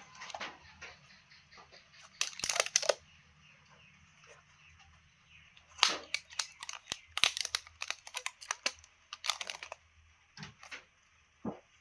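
Handling noise from sorting plants: several short bursts of crinkling and rustling with sharp clicks, over a low steady hum.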